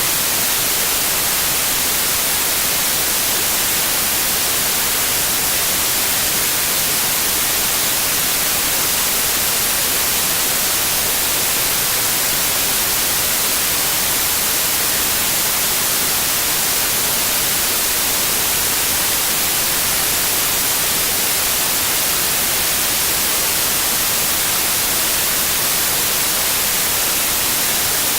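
Steady white noise: an even hiss with no change or events, strongest in the high frequencies.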